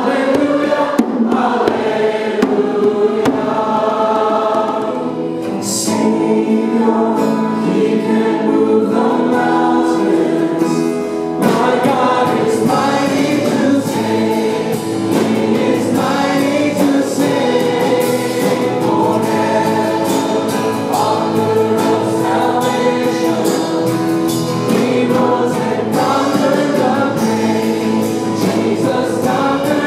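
Church choir and worship band singing a hymn together, with lead singers at microphones over the choir. About eleven seconds in the music cuts abruptly to another song, where an acoustic guitar accompanies the voices.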